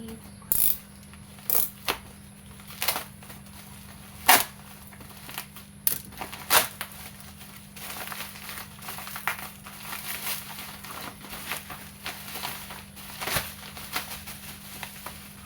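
Small electronics packaging being opened by hand: crinkling and tearing with sharp snaps in the first half, giving way to denser crackly rustling, over a steady low hum.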